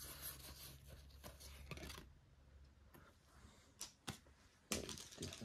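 Faint rustling of foil trading-card packs and cards being handled, with a couple of small clicks and a louder crinkling rustle near the end.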